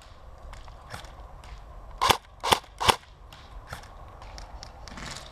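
Airsoft guns firing single shots: three loud sharp shots in quick succession about two seconds in, each under half a second apart, with fainter shots from other guns before and after.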